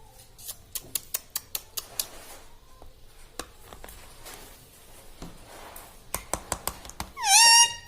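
A run of sharp clicks, about four a second, then scattered clicks. Near the end comes one loud, short call from an Indian ringneck parrot that dips and then rises in pitch.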